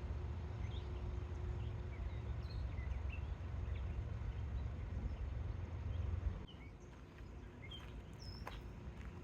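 Small birds chirping in short, scattered calls over a low steady rumble. The rumble cuts off suddenly about six seconds in, leaving quieter outdoor ambience with more chirps.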